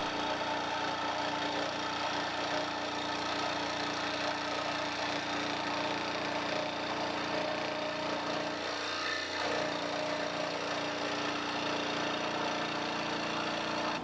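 Benchtop scroll saw running steadily, its blade cutting through plywood.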